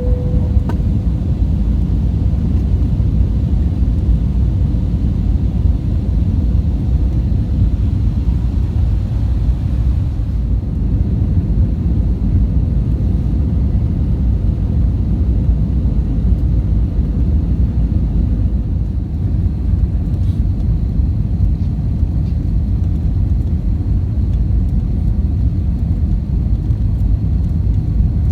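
Steady low rumble of engine and airflow noise inside a jet airliner's passenger cabin, with a faint short tone right at the start.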